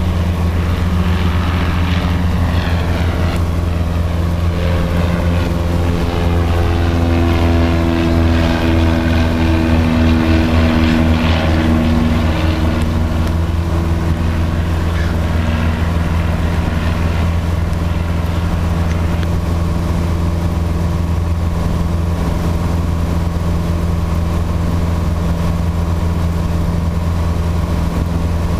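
Piper PA-28-140 Cherokee's four-cylinder Lycoming engine and propeller as heard inside the cabin, a loud, steady drone during the climb-out after takeoff. Through the middle a fainter set of tones slowly falls in pitch.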